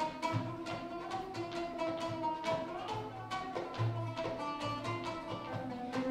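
Oud playing a melody of held notes with a rising slide about two and a half seconds in, over a hand-held frame drum keeping a rhythm of deep low strokes and lighter sharp taps.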